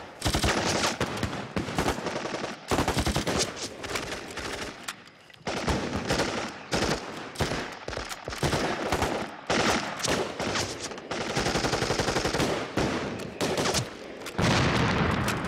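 Automatic gunfire in rapid repeated bursts from submachine guns and rifles in a staged firefight, with a heavy explosion blast near the end.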